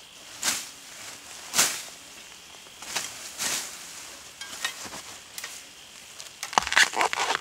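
Ferns and leafy undergrowth rustling and swishing underfoot and against the body as a person pushes through them on foot: separate swishes in the first few seconds, then denser, louder rustling with a sharp snap near the end.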